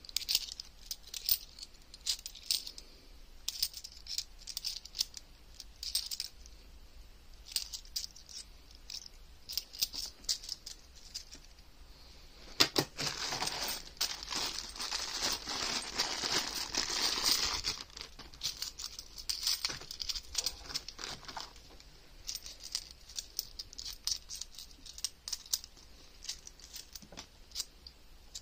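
50p coins clicking and clinking against each other as they are flicked through by hand. About halfway through, a plastic coin bag crinkles for about five seconds.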